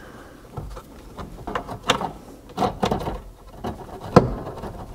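Hands plugging heater control wire connectors together under a car's dash: scattered clicks and rattles of plastic connectors and wires being handled, with one sharp click about four seconds in.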